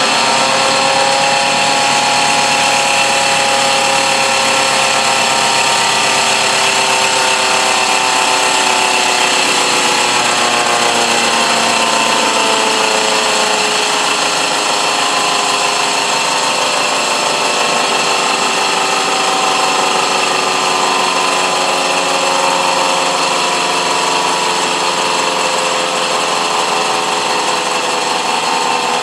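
Hobby electric motor on an electronic speed control spinning an electrospinner's collector drum at speed: a loud, steady whir with several whining tones that slowly drift up and down in pitch.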